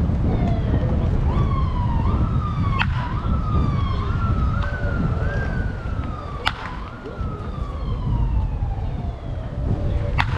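A siren wailing, its pitch swept up and down in quick repeated cycles and then falling in one long glide, over a steady low rumble. A baseball bat strikes a ball three times with sharp cracks, the loudest sounds.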